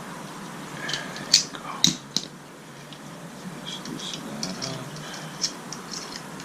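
Small metal squeegee handle parts clicking and clinking as they are unscrewed and taken apart by hand: a few sharp clicks between one and two seconds in, then lighter scattered clicks.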